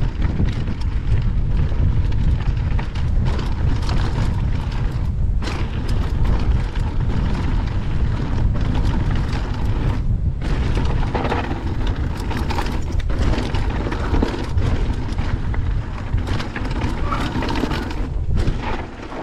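Wind buffeting the microphone of a helmet-mounted camera on a fast mountain-bike descent, a heavy low rumble, with the tyres crunching over loose gravel and the bike rattling in a run of quick clicks and knocks.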